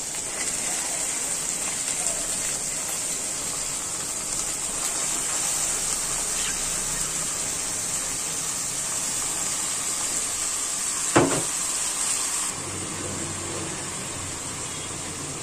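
Potato sticks, bitter gourd, onion and shrimp frying in oil in a pan: a steady sizzling hiss, with one sharp clink about eleven seconds in. The hiss drops away shortly after.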